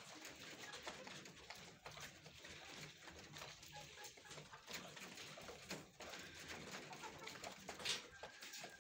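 Caged kienyeji hens pecking at plastic gutter feed troughs: quiet, scattered light taps, with faint chicken calls.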